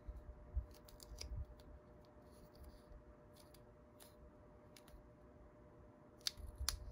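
Faint crisp clicks and crinkles of a paper sticker nail form being handled, pinched and pressed into place under a fingertip, with two sharper clicks near the end.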